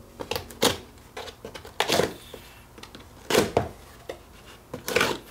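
Small cardboard parcel being cut and opened on a workbench: scattered scrapes, rustles and knocks, with a short cutting or tearing sound about two seconds in.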